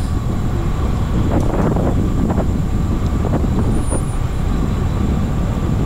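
Motorcycle ridden at a steady speed: its engine and road noise run under a constant low rumble of wind across the microphone.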